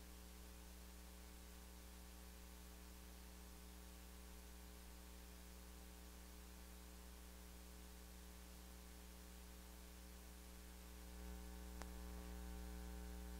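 Near silence: a faint, steady electrical mains hum with its overtones. About eleven seconds in, the faint background rises a little, with one small click soon after.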